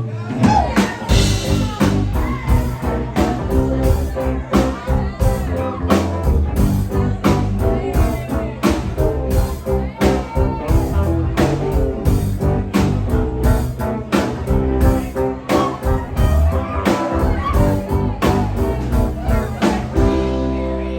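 Live rock band playing an instrumental intro on drum kit, bass and guitars with a steady beat; the drums drop out near the end, leaving held guitar and bass notes.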